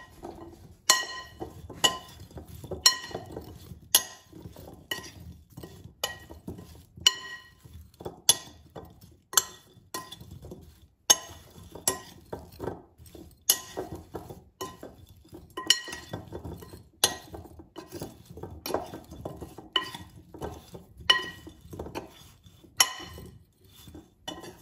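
A metal spoon tossing fingerling potatoes in a glass mixing bowl: the spoon clinks against the glass about once a second, each clink ringing briefly. Between the clinks the potatoes tumble and scrape against the bowl.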